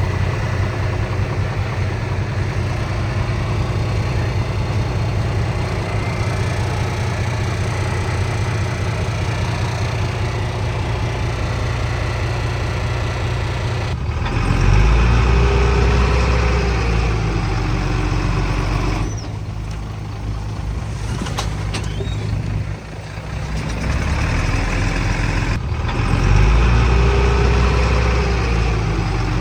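Heavy diesel engine of earthmoving machinery running steadily, then louder and heavier from about halfway in, with abrupt changes in the sound a few times.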